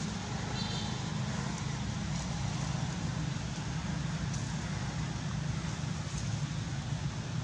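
Steady low rumble of outdoor background noise, with a brief high chirp about half a second in and a few faint ticks.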